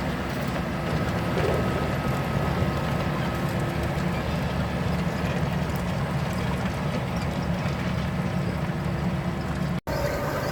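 John Deere 6155R tractor's engine running steadily under load in the field, with the working hum of the machinery it drives. The sound cuts out for an instant near the end.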